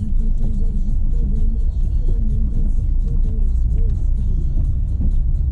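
Renault Sandero Stepway 2 driving over a dirt road: a steady low rumble of tyres and suspension with many small knocks and rattles over the bumps. The owner is tracking down a light knock from the right-hand side of the suspension.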